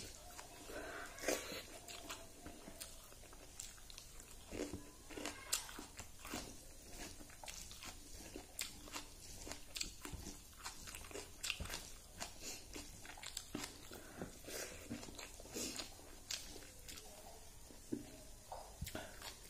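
Close-up eating sounds of rice and fish curry eaten by hand: chewing with frequent small, irregular smacks and clicks.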